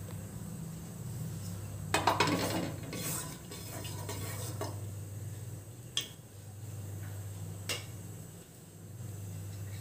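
A utensil clattering and scraping against the inside of an aluminium pressure cooker as ghee and oil heat in it, a short burst about two seconds in, then single sharp clinks near six and eight seconds. A steady low hum runs underneath.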